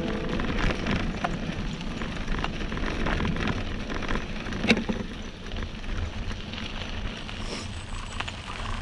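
Bicycle tyres rolling over a loose gravel road: a steady crunching hiss with scattered rattles and clicks, and one sharp click about halfway through.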